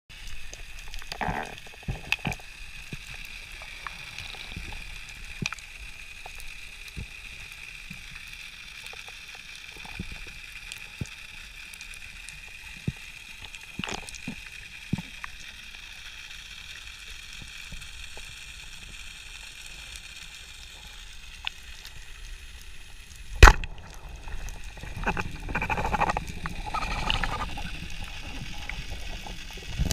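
Underwater ambience: a steady hiss with scattered small clicks and crackles. About 23 seconds in comes one sharp, loud crack of a speargun firing, followed by a few seconds of water churning and sloshing.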